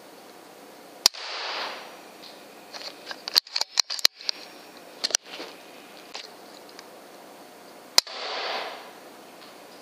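Two shots from an FX Impact M3 .25 pre-charged air rifle, about seven seconds apart, each a sharp crack followed by a brief rush of noise. A run of quicker, smaller clicks falls between them.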